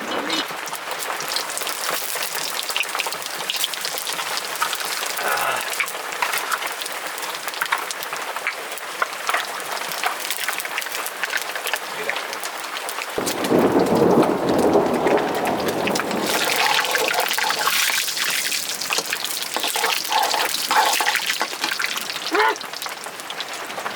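Heavy rain falling in a storm, a dense patter of many small impacts. About thirteen seconds in, a clap of thunder breaks in and rumbles low for about three seconds.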